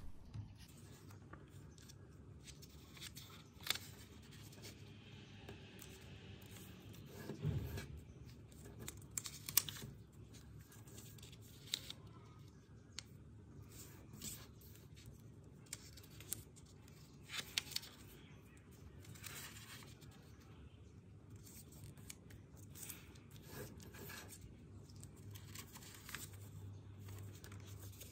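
A sheet of origami paper being folded by hand: faint rustling and crinkling, broken by scattered short, sharp crackles as folds are pressed.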